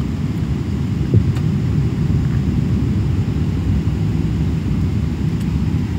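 Boeing 777-300ER airliner noise: a steady low rumble, with a brief knock about a second in.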